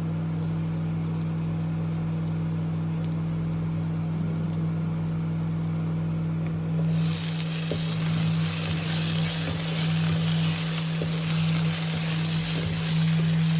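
Steady low hum of an induction cooktop, then about halfway a loud sizzling starts as food hits hot oil in the pan, with a few light clicks of stirring.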